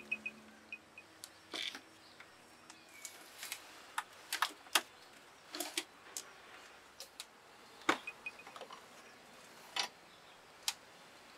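Irregular sharp clicks and knocks, a dozen or so spread unevenly, the loudest about eight seconds in: a ceramic bowl of clams and the clam shells in it being handled and set down among small clay dishes.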